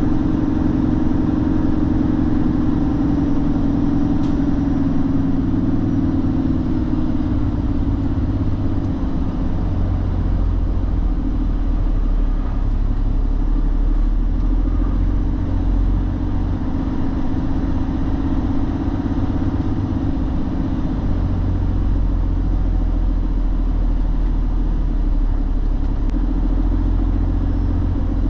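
Semi-truck's diesel engine running steadily while the truck drives, with a low rumble of road noise.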